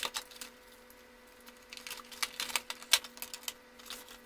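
Cardboard box and plastic packaging being handled: the inner tray slides out of its sleeve and a plastic pouch crinkles, giving irregular light clicks and crackles, busiest in the middle. A faint steady hum runs underneath.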